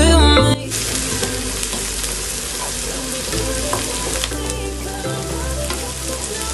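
Diced onions sizzling in hot oil in a non-stick frying pan, stirred with a wooden spatula that scrapes the pan now and then. Music cuts off about half a second in, leaving the steady frying hiss.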